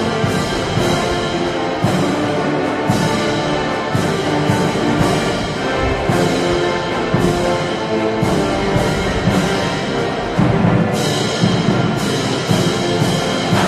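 Military band music with brass, timpani and a steady beat of drum and cymbal strokes.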